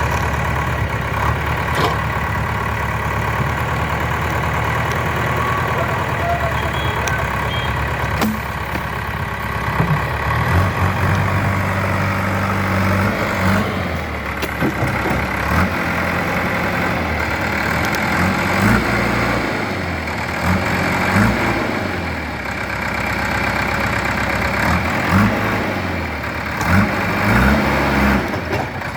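Kirloskar diesel engine of a 2008 JCB 3DX backhoe loader running: steady for about the first ten seconds, then its pitch and load keep stepping up and down as the machine works, with a few short knocks.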